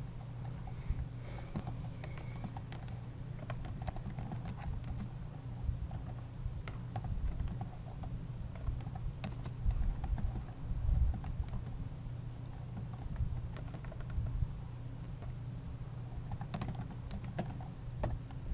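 Typing on a computer keyboard: irregular bursts of keystrokes, with a steady low hum underneath.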